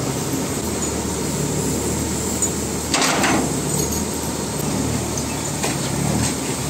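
Steady low rumble of machinery at a sugar mill's cane-unloading hoist, with a short metallic clatter about three seconds in.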